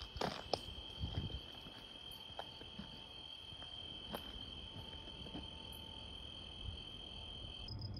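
Crickets chirping at night in one steady, high continuous trill, cut off abruptly near the end. A few soft thumps and rustles, like footsteps on a brushy trail, come in the first second or so.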